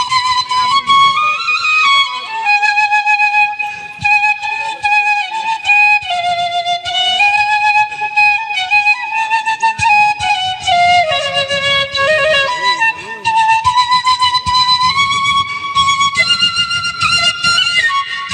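Background music: a flute playing a slow melody with vibrato, over a soft low accompaniment.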